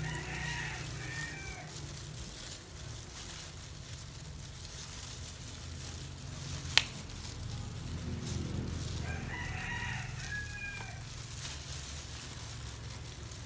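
An animal calling twice, each a long pitched call of about two seconds, the calls some nine seconds apart. Between them comes a single sharp click, the loudest sound. A low steady hum runs underneath.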